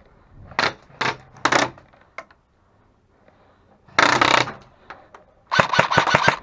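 Airsoft gun firing: three single shots about half a second apart, then a short noisy burst about four seconds in, and a rapid full-auto string of about eight shots a second near the end.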